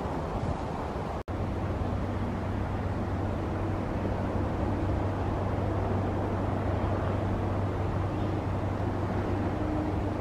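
Wind on the microphone, then a brief dropout about a second in, after which a steady low mechanical hum runs under outdoor background noise.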